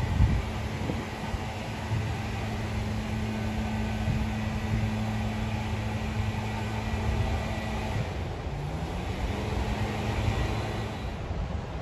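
Tractor engine running steadily while pulling a beach-cleaning sand rake. About eight seconds in its note drops, then climbs back up over about a second and holds steady again.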